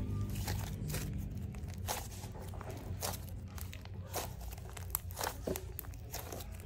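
Fluffy shaving-foam slime with soft clay kneaded into it, squeezed and stretched by hand, giving irregular sharp crackles and small pops as air pockets burst.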